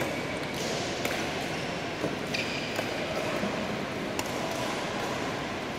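Badminton rackets striking shuttlecocks in a large hall: a handful of sharp pops a second or more apart over steady hall noise, with a brief squeak about two and a half seconds in.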